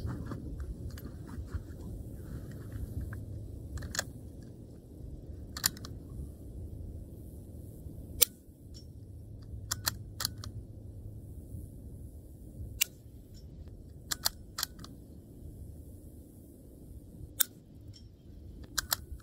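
Suppressed .22 LR bolt-action rifle, a Ruger Precision Rimfire with an AB Suppressors AH6-Littlebird can, shooting subsonic standard-velocity rounds. There are several very quiet, sharp shots a few seconds apart, softer clicks from working the bolt in between, and steady wind noise on the microphone.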